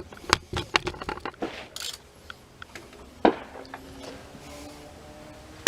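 Light clicks and taps of parts and tools being handled around the engine, with one louder knock about three seconds in. From then on a faint sustained musical tone sounds underneath.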